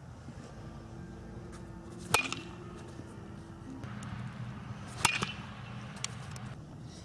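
Two crisp metallic pings of a metal baseball bat striking the ball in batting practice, about three seconds apart, each with a short ring.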